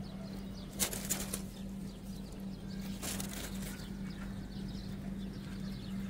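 Caged birds flapping their wings in two short flurries, about a second in and about three seconds in, over a steady low hum.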